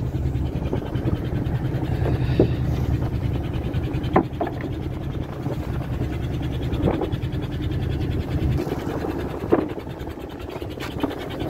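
Fishing boat's engine running under way, a steady low rumble with water rushing along the hull, broken by four sharp knocks. The rumble eases about nine seconds in.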